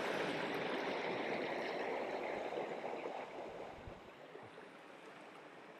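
Small rocky river running over stones: a steady rush of water that falls noticeably quieter about four seconds in.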